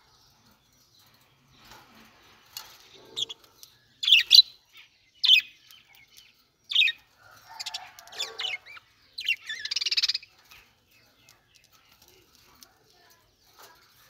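Several budgerigars chirping and squawking in short, sharp calls. The calls come thick between about two and ten seconds in, loudest around four seconds, then the birds fall quiet.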